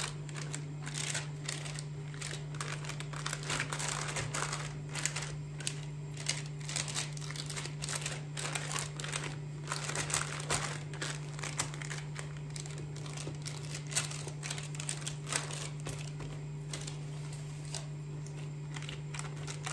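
Soft crackling and crinkling as fingers press out a risen, oiled yeast dough on parchment paper in a baking tray, with the dough's air bubbles popping under the fingers. A steady low hum runs underneath.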